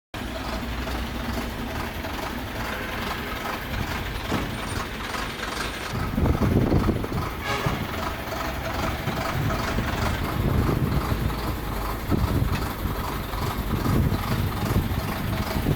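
Backhoe loader's engine running under load, with louder swells about six seconds in and again about ten seconds in, and a single sharp clank in between.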